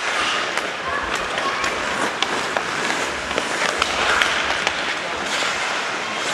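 Ice hockey play: skate blades scraping across the ice, with scattered sharp clicks of sticks striking the puck and the ice.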